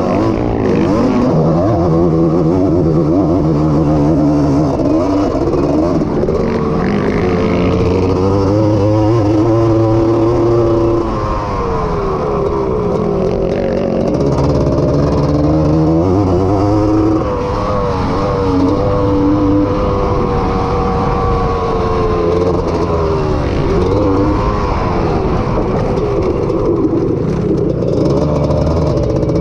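Honda ATC250R's two-stroke single-cylinder engine racing, its pitch climbing and falling over and over as the throttle is opened through the gears and backed off, with two brief drops in the middle.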